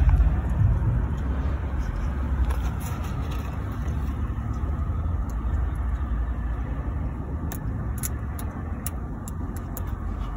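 Steady low rumble of a car heard from inside its cabin while driving, with a few faint ticks in the second half.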